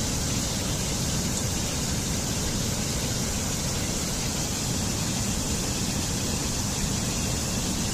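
Steady rushing water of a mountain stream cascading over rocks, one loud, even noise with no break.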